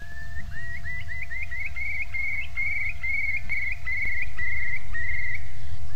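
A bird singing: a run of short rising notes that come faster and faster and run into bubbling trills, over a steady low rumble.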